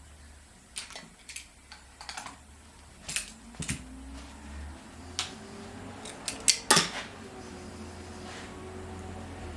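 Irregular metallic clicks and clinks of tools and small generator parts being handled on a workbench during a generator teardown, with the loudest cluster of knocks near the end.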